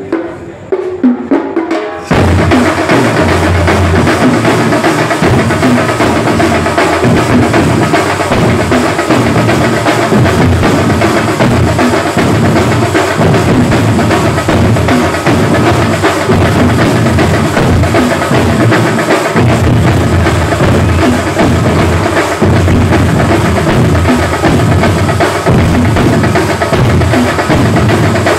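A large drum troupe of stick-beaten, double-headed barrel drums. A few separate strokes sound first, then about two seconds in the whole group comes in together with loud, fast, continuous drumming.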